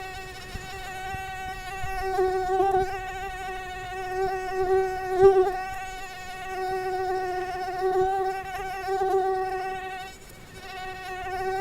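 Mosquito in flight: the steady, high-pitched whine of its wingbeat, swelling and fading several times and dipping briefly near the end.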